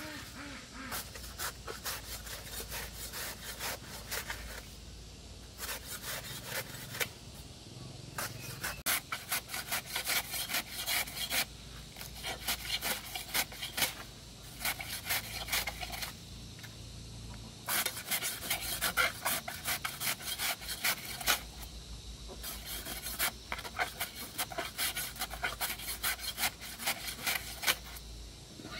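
Quick, repeated scraping or rubbing strokes in bursts of several seconds, with short pauses between the bursts.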